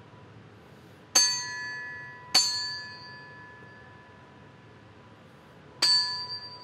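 A small metal bell struck three times, two strikes about a second apart and a third about three seconds later, each giving a bright, high ring that fades out. A faint steady ringing tone lingers underneath throughout.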